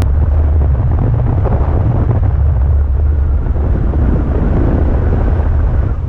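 Wind buffeting the microphone of a camera carried on a paraglider in flight: a loud, steady low rumble.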